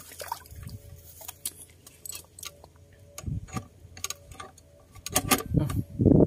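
Irregular sharp clicks and light rattling from fishing tackle and a freshly caught fish being handled, with a few dull thumps about three seconds in and again near the end.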